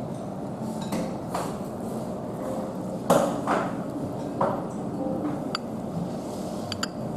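Eating utensils knocking and clinking against a ceramic rice bowl: a few dull knocks, the loudest about three seconds in, then short ringing clinks near the end, over a steady background hum.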